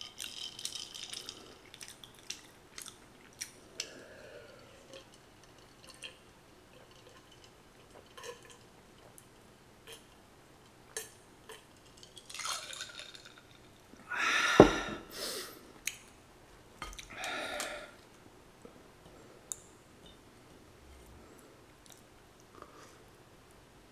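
Person drinking beer from a glass in a few gulps, then a loud breathy exhale with a sharp clink of the glass, amid small clicks and smacks of eating fried chicken.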